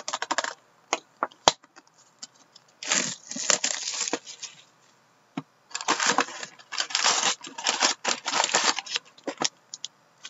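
Plastic shrink wrap on a box of hockey card packs being slit and torn open, crinkling in bursts about three seconds in and again from about six to nine seconds, with sharp clicks near the start, as the foil packs are pulled out and stacked.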